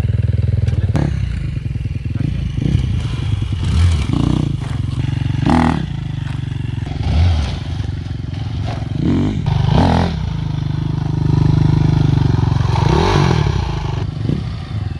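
Dirt bike engines running, with the throttle opened in short bursts several times as the riders lift the front wheel into wheelies.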